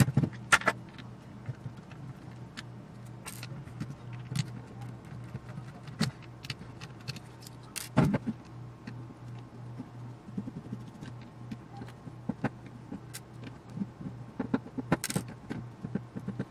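Scattered metallic clicks, clinks and rattles as a small metal motor-and-gearbox assembly is handled, turned over and worked with a screwdriver, with loose screws and parts knocking about. A steady low hum runs underneath.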